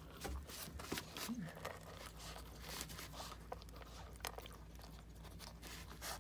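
A dog crunching and chewing dry kibble out of a stainless steel bowl: irregular crisp crunches, with small clicks as the kibble knocks against the metal bowl.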